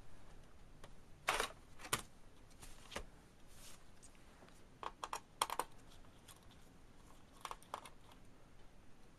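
Small plastic clicks and short scrapes of a screwdriver and loose Phillips screws being worked on a laptop's plastic bottom case, in a few scattered clusters.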